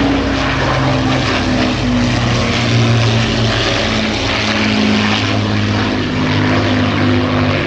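Avro Lancaster bomber's four Rolls-Royce Merlin V12 engines droning as it flies overhead: a steady, loud propeller-engine drone made of several engine notes slightly out of step with one another.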